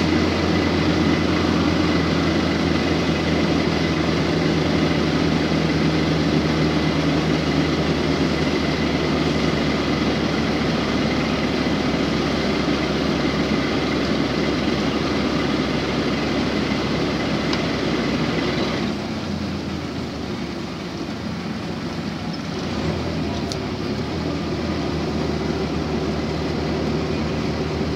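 A PAZ-32053 bus's engine and cabin drone, heard from inside the cab: a steady running note with a faint high whine. About two-thirds of the way through, the engine note drops and quietens for a few seconds, then picks up again.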